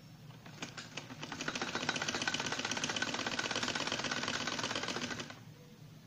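Domestic sewing machine stitching a seam: a few separate needle strokes about half a second in, speeding up into a rapid, steady run of clicking stitches, then stopping about a second before the end.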